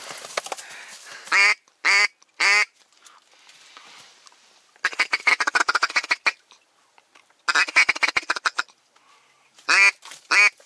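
Loud duck quacking close by: three single quacks, then two fast runs of quacks in the middle, then spaced quacks again near the end.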